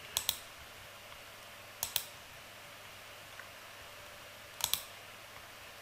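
Computer mouse clicking: three pairs of quick clicks a couple of seconds apart.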